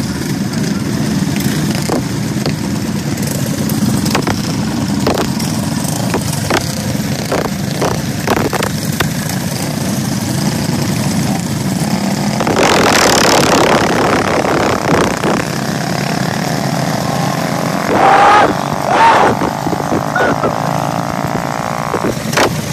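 Small mini bike engine running steadily, with scattered short knocks and a louder rush of noise about thirteen seconds in.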